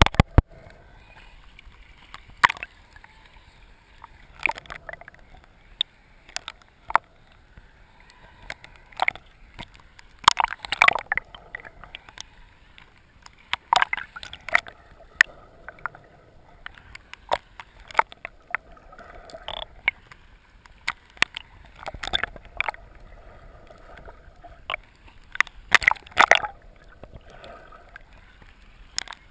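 Water sloshing and gurgling around a camera held underwater while snorkeling, with irregular sharp clicks and pops and short bubbly bursts over a low hiss.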